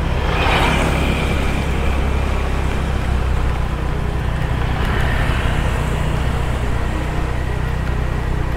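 Motor scooter engine running steadily as it rides slowly, a continuous low hum under a steady hiss of rain and road noise. There is a brief louder swell about half a second in.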